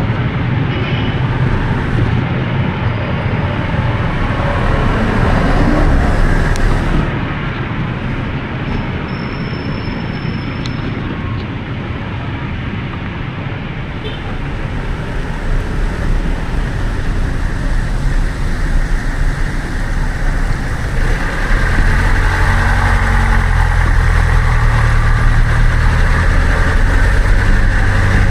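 City road traffic heard from a bicycle: running vehicle engines and tyre noise under a constant low rumble. From about two-thirds of the way through, a heavier motor vehicle's engine runs close by and gets louder.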